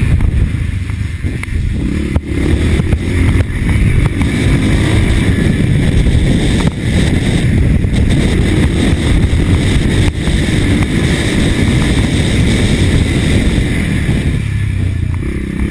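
A 1983 Husqvarna TC 500 motocross bike's engine running loudly and steadily under load.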